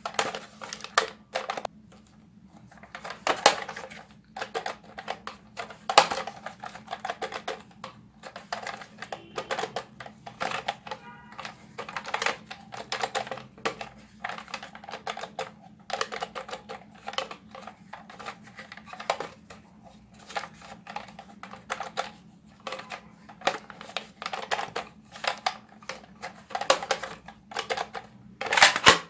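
Hard plastic Captain America toy blaster being handled close up: irregular clicks and clacks of its plastic parts, with a few louder snaps, the loudest near the end.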